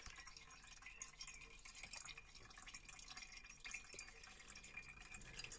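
Faint, scattered drips of liquid: aqueous filtrate dripping from a paper filter in a funnel into a glass beaker, over quiet room tone.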